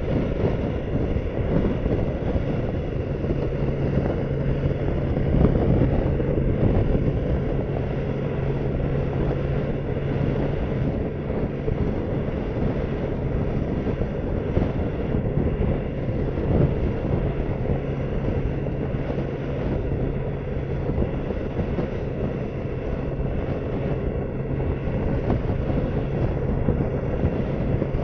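BMW K1600 motorcycle's inline-six engine running at a steady cruise, holding one even note, under a constant rush of wind and road noise.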